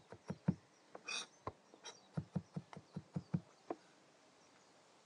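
Kitchen knife chopping on a cutting board, mincing garlic by hand: a quick run of sharp knocks, about four a second, with a brief scrape about a second in. The chopping stops a little over a second before the end.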